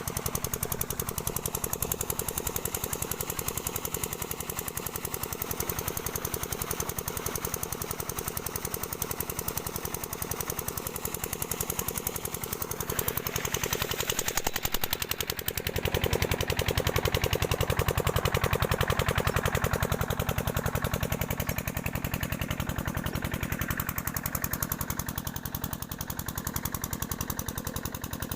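An engine running steadily with a rapid, even beat, getting a little louder about halfway through.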